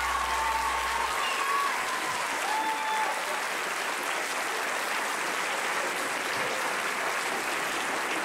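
Audience applauding at the end of a song. The band's last held notes die away about a second in, under the clapping.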